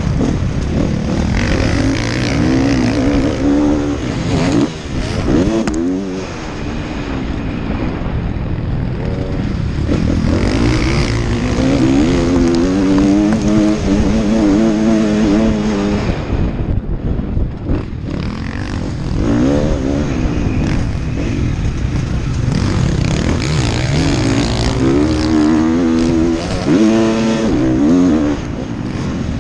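Motocross bike engine under hard riding, revving up and falling back again and again through the gears, heard from a helmet camera. The throttle shuts off briefly about halfway through, then the engine picks up again.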